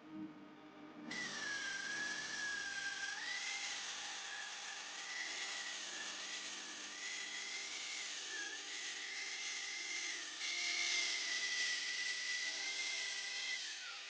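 Electric power tool motor running under load on leaf-spring steel for about twelve seconds, with a hiss and a whine that dips and recovers as the tool bites. The whine falls away and stops near the end.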